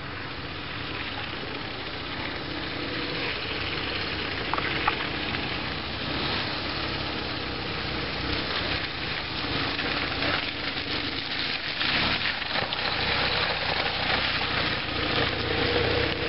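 Dual-sport motorcycle engine approaching along the trail, growing steadily louder, over a hissy, crackly background.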